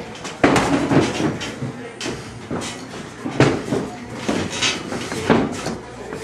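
Boxing gloves thudding as punches land during sparring: about half a dozen irregular hits.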